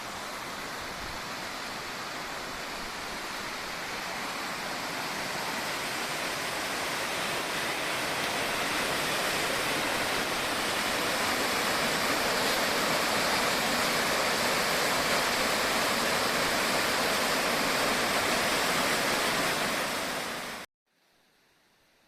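Rushing water of a mountain stream, a steady rush that grows gradually louder, then cuts off abruptly near the end.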